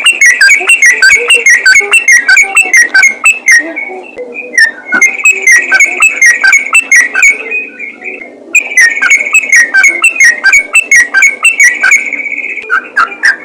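Yellow-vented bulbul (trucukan) singing: a fast, loud run of short whistled notes, many dropping in pitch, with brief pauses about four and eight seconds in.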